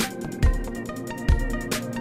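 Background music with a steady beat: held chord tones over recurring drum hits.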